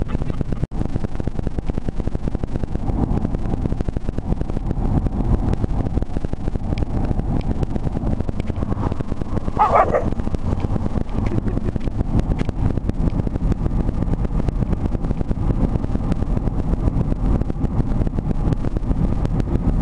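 Wind buffeting and road noise through open car windows, a steady low rumble with a pitter-patter flutter. Near the middle, an Ibizan Hound mix gives a single short bark.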